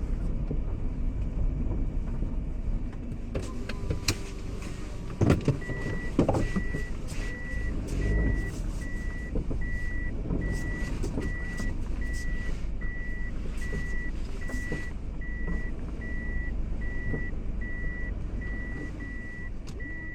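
Car with a low steady rumble; about five seconds in there is a clunk, then an electronic warning beep starts, repeating evenly at a little under two beeps a second.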